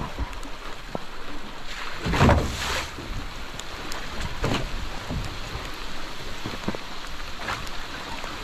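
Rain falling on a trimaran under sail at sea: a steady hiss of rain and water, with a few brief louder rushes, the biggest about two seconds in.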